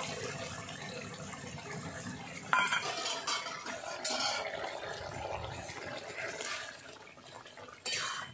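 Metal spoon clinking against a steel bowl and a metal wok as shrimp are added to a simmering curry, over a steady bubbling hiss. There are a few sharp clinks, the loudest about two and a half seconds in, and near the end a metal spatula stirs in the pan.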